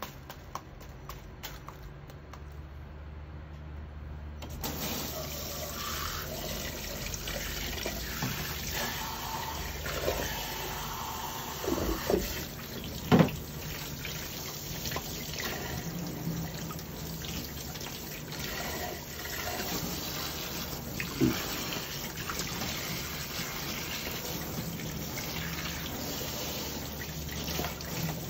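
Kitchen tap running into a stainless steel sink, turned on about four and a half seconds in, as a used flannel coffee filter is emptied and rinsed under it. A few sharp knocks against the sink come along the way, the loudest about 13 seconds in.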